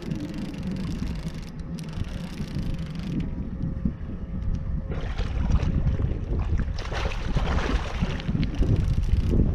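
Wind buffeting the microphone, joined about halfway through by louder splashing and sloshing as a small catfish is brought to the boat and landed.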